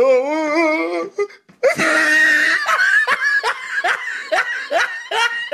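Laughter sound effect laid over the picture: a high, wavering giggle for about a second, a brief pause, then a longer run of repeated laughing.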